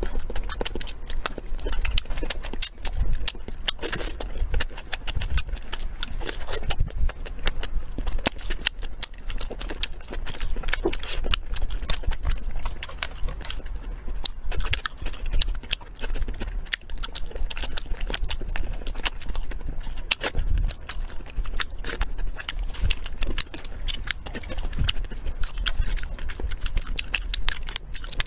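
Close-miked eating: chewing and biting, with many sharp crunches and clicks in quick, uneven succession.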